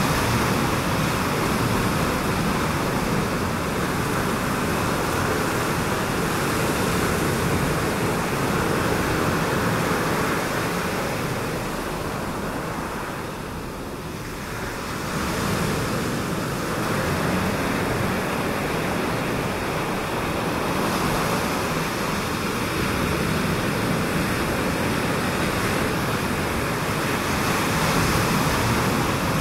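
Ocean surf washing on a reef, heard as a steady rush of noise that eases for a few seconds about halfway through and then swells back.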